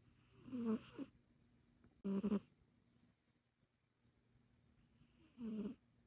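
Sleeping Egyptian Mau cat snoring: three short snores spaced a couple of seconds apart, the first wavering in pitch.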